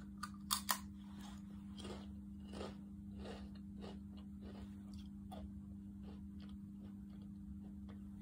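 Crisp ridged Calbee potato chip being bitten and chewed: a few sharp crunches as the bite is taken about half a second in, then a steady run of chewing crunches about every two-thirds of a second that grow weaker.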